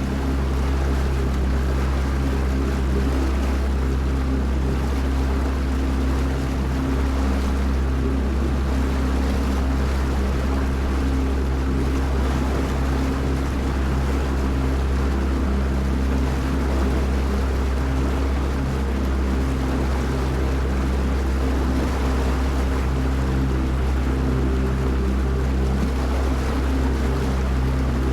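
Small motorboat's engine running steadily as the boat cruises, with water rushing past the hull and wind. The engine's low hum holds an even pitch throughout.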